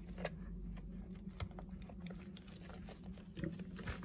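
Scattered small clicks and rustling of gloved hands working rope into the spark-plug hole of a Stihl MS 210 chainsaw and handling the saw, over a faint steady low hum. The rope is being packed in to jam the piston so the clutch can be undone.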